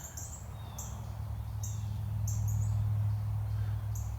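Small birds chirping, a string of short high chirps repeating every half second or so, over a steady low hum.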